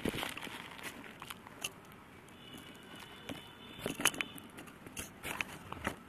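Dry, powdery grey clumps being crumbled and squeezed by hand in a cardboard box: gritty crunching and crackling. There is a sharp crunch at the start, and denser bursts about four seconds in and again near the end.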